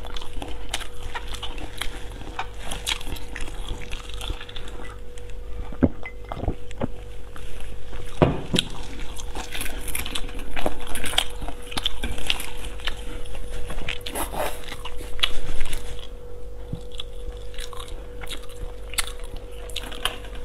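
Close-up chewing of breaded chicken cutlet and sausage, picked up by a lapel microphone, with irregular clicks of chopsticks on a ceramic plate over a steady hum.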